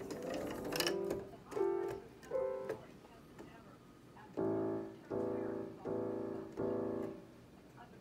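Digital piano played: a few clicks, then two short notes, then four chords struck one after another near the end, each ringing for most of a second.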